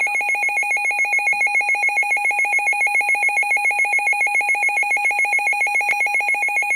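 Loud electronic alert tone opening an emergency alert broadcast, warbling between two high pitches over a lower steady pitch and pulsing rapidly, several times a second. It cuts off suddenly at the end.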